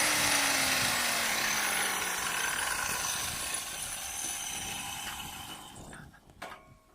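A power tool whirring, with a low tone that falls in pitch over the first couple of seconds as it winds down, then fading out gradually over about six seconds.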